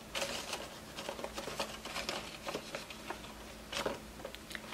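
Paper dollar bills and clear plastic binder sleeves rustling as cash is slid into a sleeve and pressed flat: a string of short, soft rustles and light taps.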